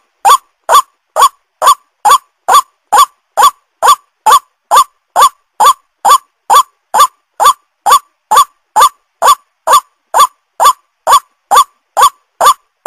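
White-breasted waterhen calling, a short upward-sliding note repeated evenly about twice a second. It is a looped lure-call recording of the kind used to draw waterhens in.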